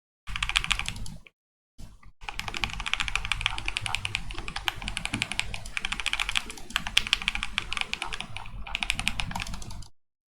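Typing on a KBD67 Lite R3 mechanical keyboard with stock, unmodified Akko Jelly Black linear switches. A short burst of keystrokes, a brief pause, then a long run of fast, continuous typing that stops near the end.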